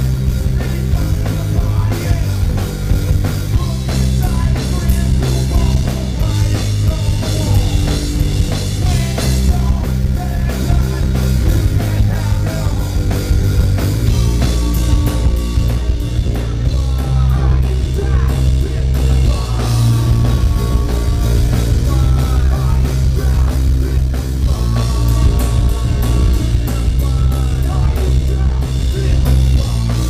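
A rock band playing loud and live: drum kit with cymbal hits and a distorted electric guitar over a heavy low end.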